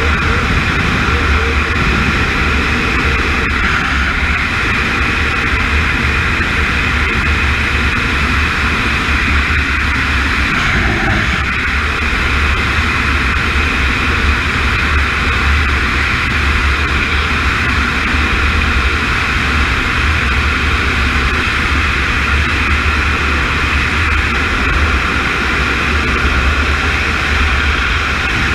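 Pilatus aircraft's engine running steadily, a continuous roar with a constant high whine.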